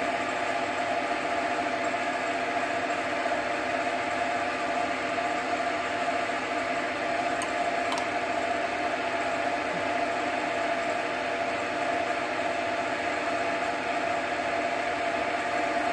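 JFMT metal lathe running steadily in screw-cutting mode, its gear train whirring with a constant hum while a thread is cut on a steel stud.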